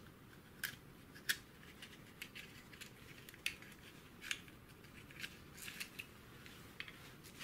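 Faint, scattered small clicks of small parts and packaging being handled in the fingers.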